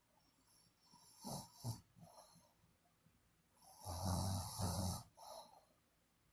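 A sleeper snoring: a couple of short breathy sounds, then one loud, low-pitched snore about four seconds in lasting about a second, with a softer breath just after it.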